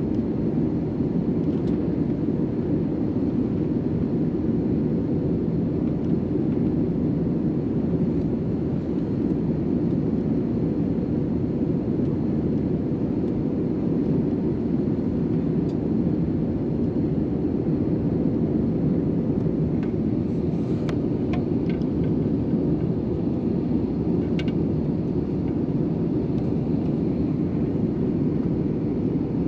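Steady cabin noise of an Airbus A321 airliner during its descent: a constant low rush of airflow and engine drone inside the cabin, with a few faint clicks about two-thirds of the way through.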